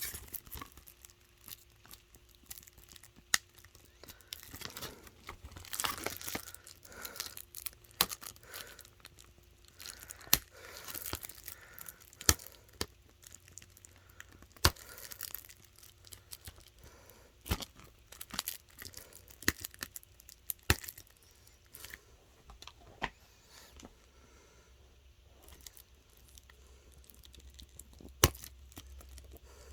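Plastic shrink wrap being picked at and torn off a Blu-ray case: quiet, irregular crinkling broken by sharp clicks and snaps.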